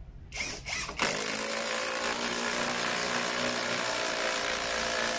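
SfunPro 16V cordless drill/driver driving a large wood screw into a log: a couple of short trigger blips, then from about a second in the motor runs steadily with an even whine as the screw goes in.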